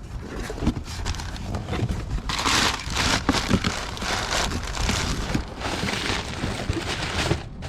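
Crinkling and rustling of packaging material with irregular small crackles and clicks, as a pre-filter is unwrapped and handled to fit over an air intake filter.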